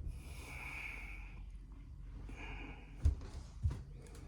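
A person breathing out heavily near the microphone, twice, with a few dull low thumps.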